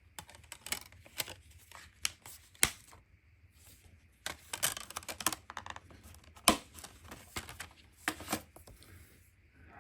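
Blu-ray disc packaging being handled and opened: irregular clicks and taps with short bursts of paper and plastic rustling, two sharper snaps about a third of the way in and past the middle.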